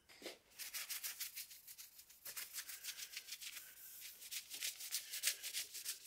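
Quick back-and-forth rubbing strokes on wood, about six a second, starting about half a second in.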